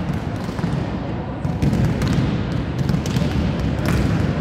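Volleyballs being hit and bounced during a team warm-up: a dozen or so sharp, irregular slaps and bounces over a steady low background din.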